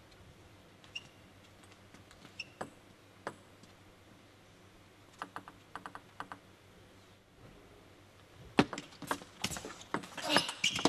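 Celluloid-type table tennis ball clicking: a quick run of light bounces on the table before the serve, then a rally from about eight seconds in, the ball striking the bats and the table about twice a second with louder, sharper clicks.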